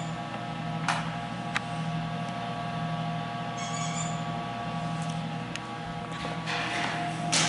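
Steady electrical hum made of several held tones, with a few sharp clicks, a short high chirp about four seconds in, and a rustling scuff near the end.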